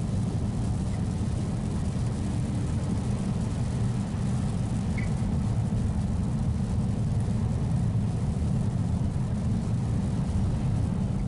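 Steady low rumble of a car's engine and tyres on a rain-soaked highway, heard from inside the cabin, with a hiss of water over it.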